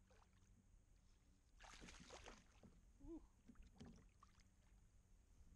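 Near silence: faint outdoor background with a brief soft noise about two seconds in.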